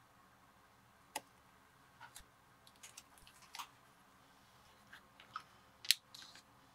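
Hand work with leather and tools on a cutting mat: a craft knife trimming the end of a leather strap and tools being handled and set down. It comes as scattered short scrapes and sharp clicks, the loudest click near the end.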